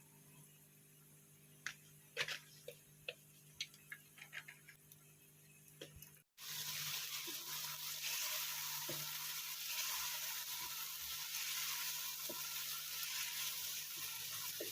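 Scattered drips and ticks for about six seconds, then, after an abrupt cut, the steady hiss of heavy rain.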